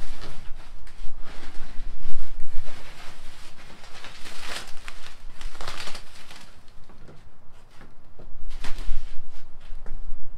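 Foam packing sheet rustling and crinkling in irregular bursts as it is pulled and handled, loudest a little before halfway, with a boxy echo from the bare metal van body.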